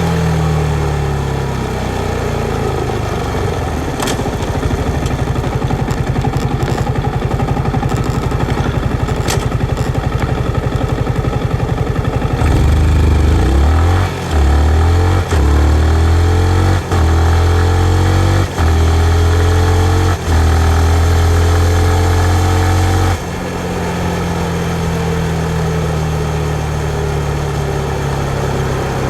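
2019 Yamaha MT-15's single-cylinder engine slowing with falling revs, then running steadily at low revs. About halfway through it pulls away hard, revs rising in steps broken by several quick upshifts. Near the end the throttle closes and the revs fall away.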